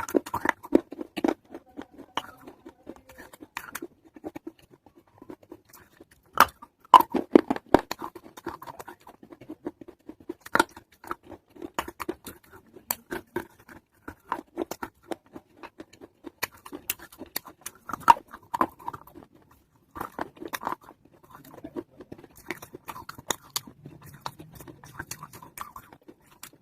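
A person biting and chewing pieces of a fired-clay matka (earthen pot), with irregular sharp crunches and cracks. The loudest cluster comes about seven seconds in.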